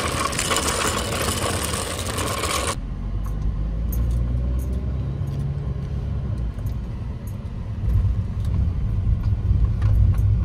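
Shopping cart rattling as it rolls over parking-lot pavement. About three seconds in, this cuts to the low rumble of a car driving, heard from inside the cabin, which grows louder near the end.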